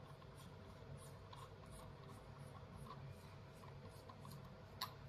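Faint scratchy ticking of threads as the lens retaining ring is turned inside a CO2 laser head's lens tube, a couple of ticks a second, with one sharper click near the end over a low steady hum.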